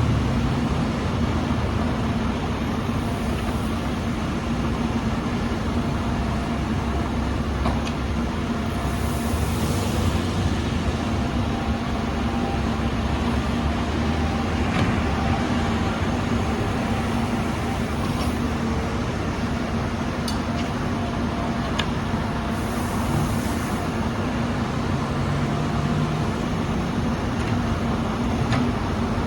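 Backhoe's diesel engine running steadily with a constant hum, with a few light clanks and two brief hisses, about nine and twenty-three seconds in.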